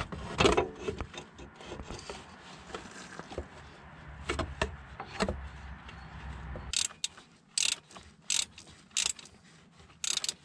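Metal clicking and scraping from hand work on the failing AC compressor pulley of a 2003 Dodge 2500 diesel pickup. A low steady scraping with scattered clicks gives way, past the middle, to five separate sharp clicks or rattles about a second apart.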